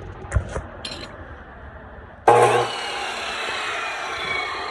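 A few handling clicks, then a chop saw's motor switched on about two seconds in with a loud start, whirring steadily with its pitch slowly falling. The saw runs on a freshly fitted plug adapter that replaced its broken plug.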